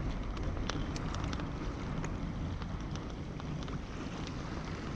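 Wind buffeting the microphone over open sea, with small waves lapping against the kayak and a few faint scattered ticks.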